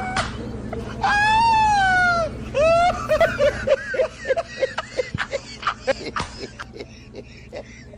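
A person's voice: a long cry that rises and falls in pitch, a shorter one after it, then a run of short pitched bursts that fade away.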